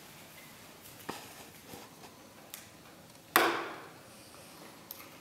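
Faint handling sounds as glue is squeezed from plastic bottles into plastic bowls: a few light clicks, then a louder sudden noise about three and a half seconds in that fades over about half a second.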